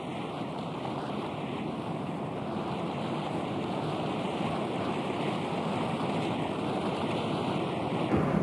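Steady rushing of airflow in flight, with no engine note; the sound changes near the end.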